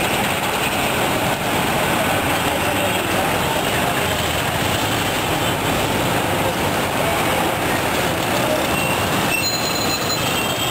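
Street traffic: a steady din from the engines of scooters, motorcycles and auto-rickshaws, with a few short high beeps near the end.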